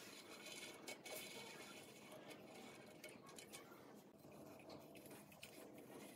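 Very faint: a hand tap turned in a tap wrench, cutting threads into a steel plate clamped in a vise, giving a few light metallic clicks and scrapes over a soft hiss.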